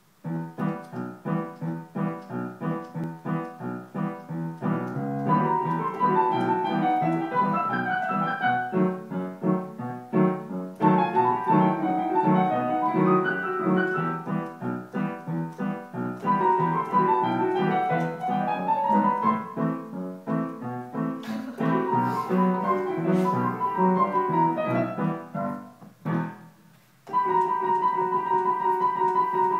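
Piano duet played four-hands on a digital piano: steady repeated chords in the lower part with a melody moving above them. The playing breaks off briefly near the end and starts again.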